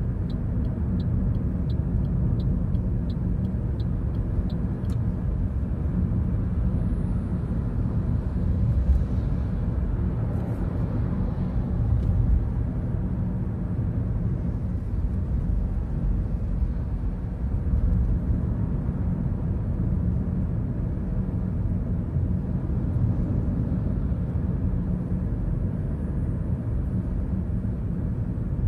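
Car driving at about 50 km/h, heard from inside the cabin: a steady low rumble of road and engine noise. A faint, fast, regular ticking runs through the first five seconds and then stops.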